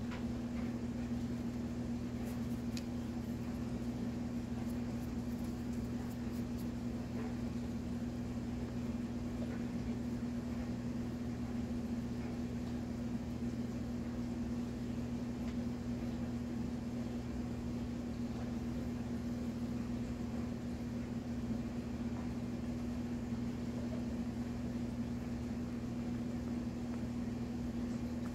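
A steady low hum of constant pitch from a small electric motor running, with a few faint light ticks a few seconds in.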